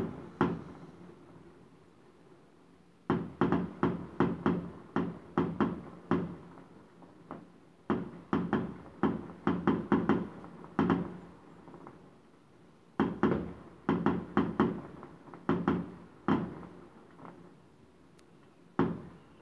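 Fireworks going off outside, heard muffled through a closed window: three volleys of rapid bangs, about three a second, each lasting several seconds with quieter pauses between, and one more bang near the end.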